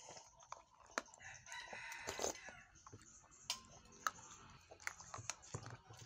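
A rooster crows once in the background, about a second and a half in, the loudest sound here. Around it come scattered sharp clicks of a metal spoon knocking ice in a plastic cup.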